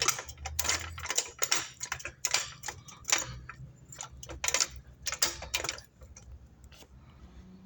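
Trolley jack being pumped to lift the car: a run of sharp, irregular metallic clicks, a few a second, over a low steady hum.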